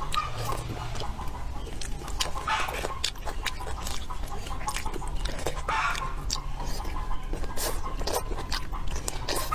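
Close-up eating sounds: wet chewing, lip-smacking and mouth clicks from someone chewing rice and whole chilli peppers, with a few short hissy sucks and slurps.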